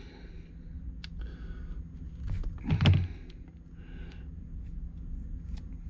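Faint clicks and one soft knock about three seconds in, from small tools and parts being handled at a soldering bench, over a low steady hum.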